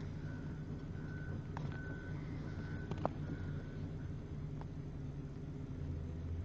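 Reversing alarm on heavy demolition machinery beeping about five times in steady pulses over a low, steady diesel engine rumble. A single sharp knock comes about three seconds in.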